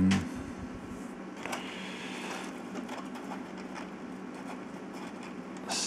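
Faint clicks and scrapes of small 3D-printed plastic wireframe puzzle pieces being handled and slid together over a steady low hum. A brief scratchy rustle comes about two seconds in, and a sharper click comes near the end.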